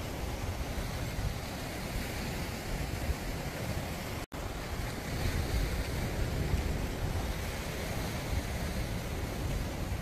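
Sea waves washing on the shore, mixed with wind buffeting the microphone: a steady, rough rush heaviest in the lows. The sound drops out for an instant a little over four seconds in.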